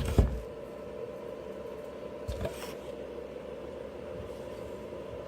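A couple of sharp knocks from the opened-up electric blower's parts being handled, with a smaller knock about two and a half seconds in, over a steady low background hum.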